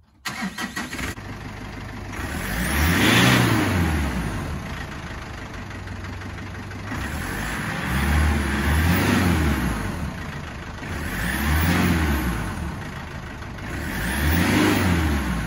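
Ford Ranger PJ diesel engine started and then revved four times, each rev rising and falling back to idle. It is a test start after fitting a snorkel, checking the new intake for air leaks.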